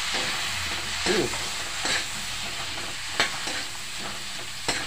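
Shrimp sizzling in butter and oil in a frying pan while a spoon stirs them, with a few sharp clicks of the spoon against the pan.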